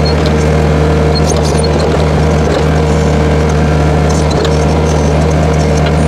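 Skid steer engine running steadily under load, powering the hydraulics of a backhoe attachment as it digs; a steady hum with a constant whine above it.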